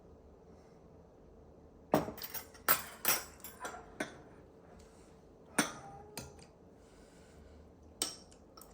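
Dishes and cutlery clinking in a kitchen, a scattered series of about eight sharp knocks and clinks starting about two seconds in.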